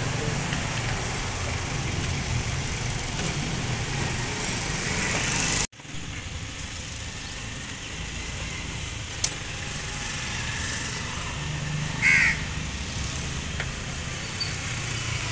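Toyota Corolla engine idling with a steady low hum, its VVT-i oil control valve, blamed for the RPM going up and down, cleaned and refitted. The sound cuts off abruptly about six seconds in and comes back quieter, with a sharp click and a brief higher-pitched noise later on.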